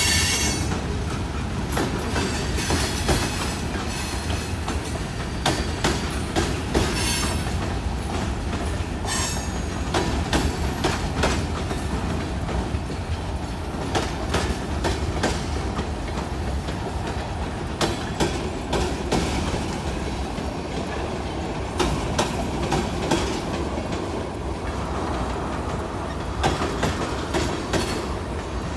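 Freight cars of a CSX mixed freight train, box cars then tank cars, rolling steadily past: a continuous low rumble with wheels clacking over the rail joints. Brief high-pitched wheel squeals come through in the first ten seconds or so.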